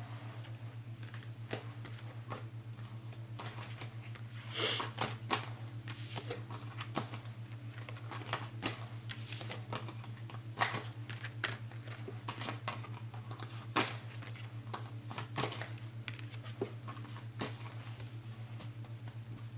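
Tarot cards being shuffled and handled: irregular light clicks and flicks of card stock, louder around five seconds in, over a steady low hum.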